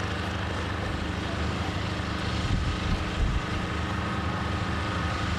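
Heavy diesel engine idling steadily with a low drone, over the general noise of an outdoor truck show.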